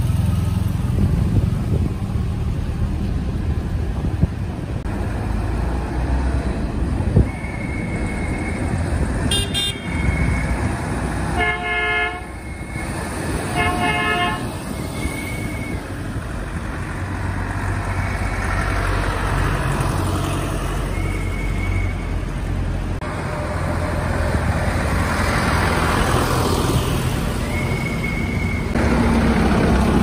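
Diesel tractor engines running as a convoy of tractors drives past, with two loud horn honks about twelve and fourteen seconds in and short high beeps now and then. Near the end a tractor passes close and its engine grows louder.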